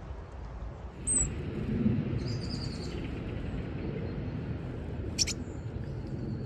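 High, thin chirps of small songbirds over a steady low rumble: a short chirp about a second in, a quick run of calls between two and three seconds, and a sharp single call about five seconds in.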